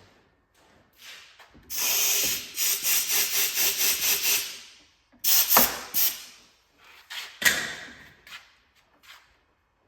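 Rapid rubbing strokes on a hard surface, about five a second for nearly three seconds, followed by a few sharp knocks and clacks.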